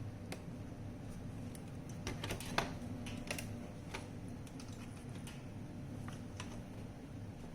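Scattered small clicks and taps of plastic parts being handled, a few in quick succession about two to three seconds in, over a steady low hum.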